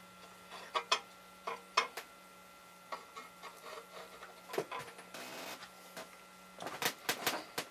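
Scattered light metal clicks and scrapes of a dial caliper being slid and set against an aluminum plate held in a bench vise, with a short scraping stretch about five seconds in and a quick run of louder clicks and rattles near the end as the caliper is taken away. A faint steady hum runs underneath.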